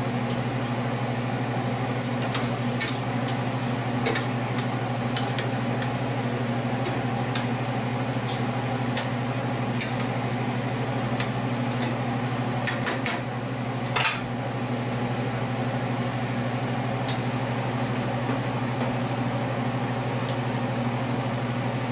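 Metal tongs clicking and scraping against a stainless skillet as chicken wings are turned in sauce: scattered sharp clinks, most of them in the first two-thirds, the loudest about two-thirds of the way through. Under them runs a steady low hum.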